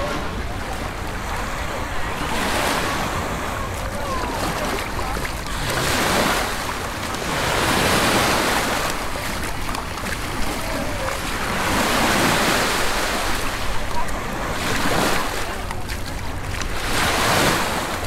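Small Mediterranean waves breaking and washing up a sandy shore, each wash swelling and fading every few seconds, with a steady low rumble of wind on the microphone.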